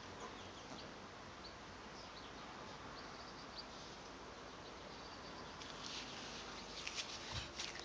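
Faint steady outdoor background hiss with scattered short, high-pitched chirps, coming more thickly near the end.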